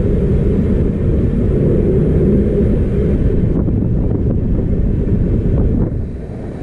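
Steady low rumble of a moving LHB passenger coach running along the track, easing off a little near the end.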